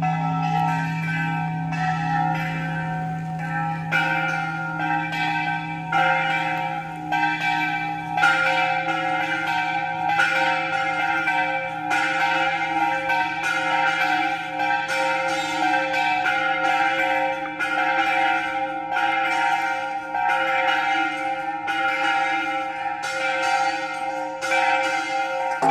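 Church bells ringing a fast peal: several bells struck in quick, uneven succession, their tones overlapping and ringing on.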